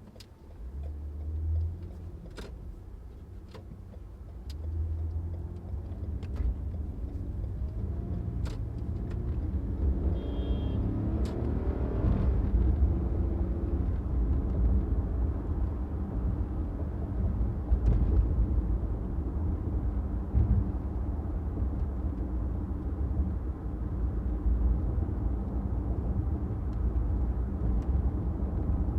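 A car driving along a city street: a low engine and road rumble grows louder over the first several seconds and then holds steady. A few short sharp clicks come in the first dozen seconds.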